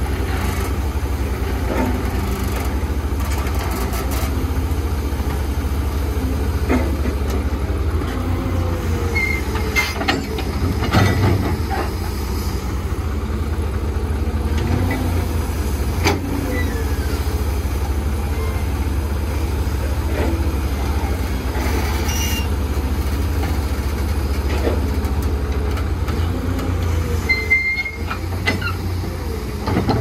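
Excavator's diesel engine running with a steady low drone, with squeaks and creaks and a few sharp metal clunks from the working machine, the loudest about eleven seconds in.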